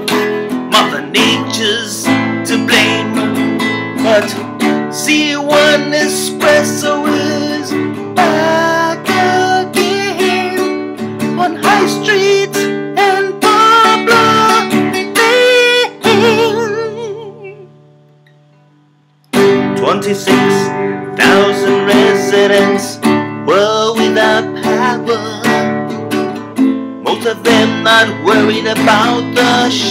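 Acoustic guitar strummed steadily while a man sings over it. A little past halfway the music fades to a very low level, pauses for about a second, then starts again abruptly.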